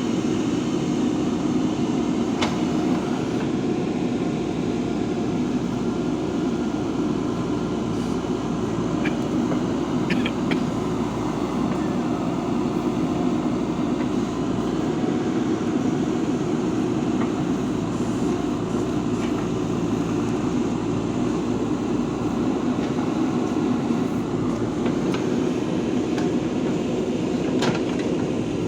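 JCB 3DX Super backhoe loader's diesel engine running steadily under work, with a few sharp metallic clanks.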